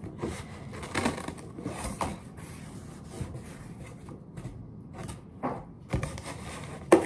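Scissors cutting into corrugated cardboard: a run of irregular snips, about one a second, with one sharp louder snap near the end.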